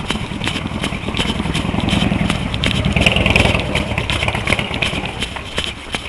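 A motor vehicle's engine rumble that swells and fades as it passes, loudest a few seconds in, over the quick, even footfalls of a runner.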